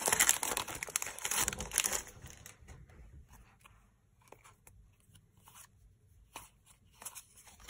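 Foil booster-pack wrapper crinkling and tearing open for about the first two seconds, then faint scattered clicks and rustles of the trading cards being handled and flipped through.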